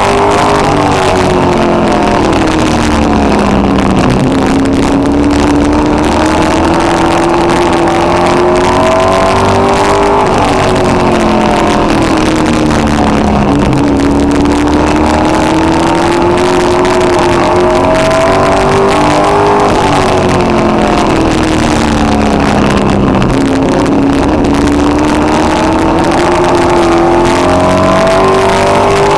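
Street stock race car engine heard from inside the car at racing speed, with tyre and wind noise. Its pitch drops as the driver lifts for each turn, then climbs again under full throttle, about every nine to ten seconds.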